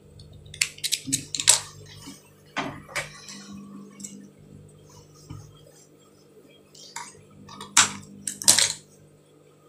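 Sharp clicks and light taps from spring-loaded plastic thread snips being squeezed to cut threads and handled against a sewing table, scattered irregularly with a quiet stretch in the middle.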